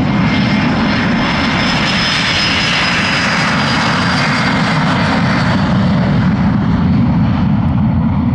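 Hawker business jet's twin rear-mounted turbofans at takeoff power on the takeoff roll: a steady low rumble with a high whine that falls slightly in pitch as the jet passes about three seconds in, after which the hiss dulls as it moves away.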